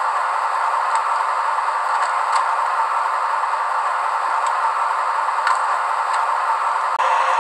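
Zimo sound decoder in a model M 262.1 diesel railcar, playing its recorded railcar sound through the model's small speaker: a steady hissing run with a few faint clicks, turning fuller about seven seconds in.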